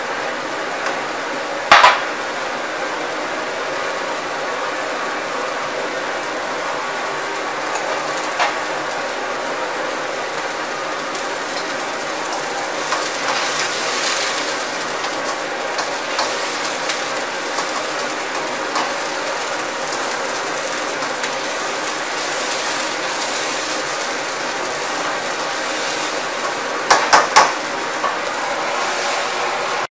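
Steady rushing of a commercial wok burner under a wok of boiling water in which beef is blanching. Metal ladle and wire strainer knock against the wok: one sharp clank about two seconds in, a few lighter taps, and three quick clanks near the end as the beef is lifted out.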